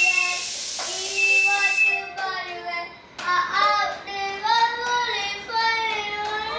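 A young child singing a tune in short phrases, with a brief pause about halfway. A steady high hiss under the singing cuts off suddenly about two seconds in.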